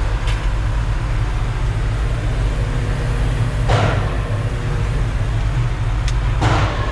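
Concrete mixer truck's diesel engine running steadily, with two short hisses of air about four seconds in and again near the end.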